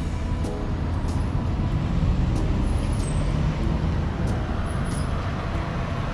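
Steady low rumble of street traffic noise, with faint background music.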